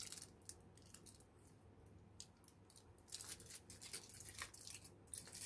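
Faint, scattered crinkles and clicks from a foil-wrapped Meiji chocolate bar being handled and eaten: the foil rustles and the chocolate is chewed quietly, with the ticks coming more often in the second half.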